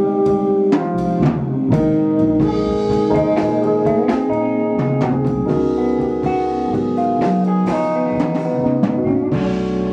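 Live jazz-funk band playing: drum kit and electric guitar over bass and sustained chords, with a steady beat.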